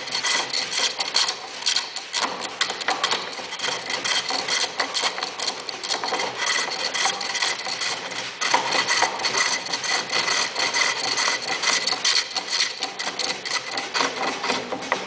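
A lathe running with a cutting tool on the turning workpiece, giving a rapid, continuous scraping chatter over a steady motor tone that cuts off at the end.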